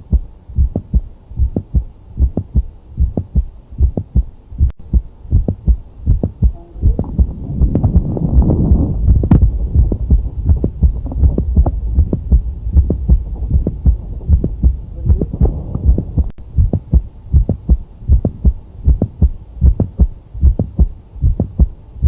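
Heartbeat heard through a stethoscope: a steady, even rhythm of lub-dub beats with a mid-systolic click between them, the classic sign of mitral valve prolapse. A louder low noise swells over the beats about seven seconds in and fades by ten.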